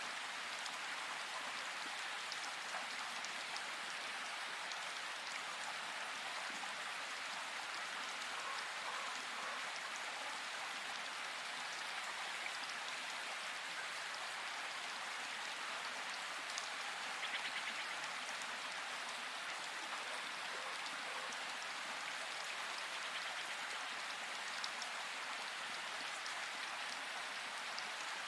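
Steady rain falling in a forest: an even, dense hiss of raindrops, with occasional single drops standing out.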